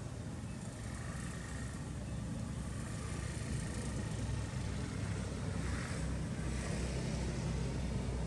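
A steady low rumble of outdoor background noise, with no distinct event standing out.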